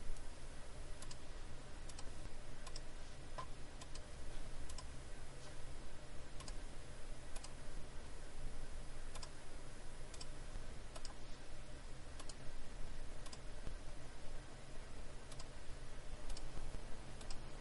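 Faint sharp clicks, about one a second, over a steady low hum of room and recording noise.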